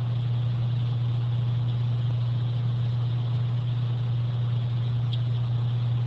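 Steady low electrical hum over a constant hiss, the background noise of the recording setup, with a faint short tick about five seconds in.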